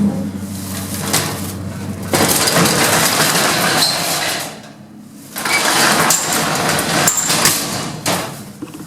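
Service lift running with loud metallic rattling and clattering in two spells of a couple of seconds each, over a steady low hum.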